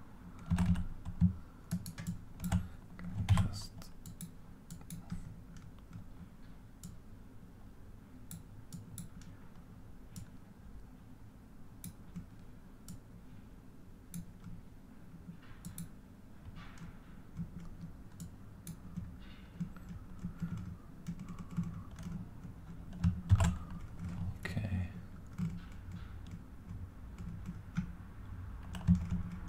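Computer keyboard keys tapped intermittently, single presses and short runs, louder and busier a few seconds in and again around two-thirds of the way through, over a low steady hum.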